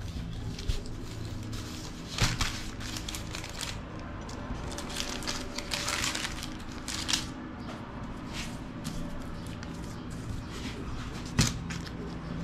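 Hands stretching and pressing raw pizza dough onto a perforated metal pizza tray: soft rustling and scraping, with a few sharp knocks, the clearest about two seconds in and near the end.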